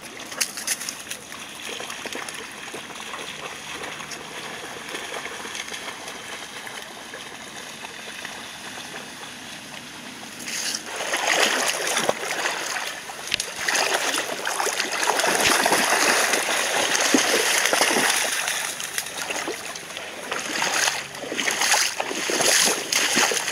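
Golden retrievers wading through shallow river water. Quiet at first, then from about ten seconds in, loud sloshing and splashing as they push through it, easing off and coming back in bursts near the end.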